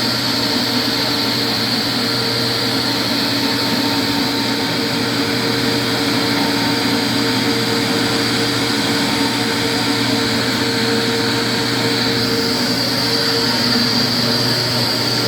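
Concrete floor sanding machine running steadily, a constant machine hum with a high whine over it.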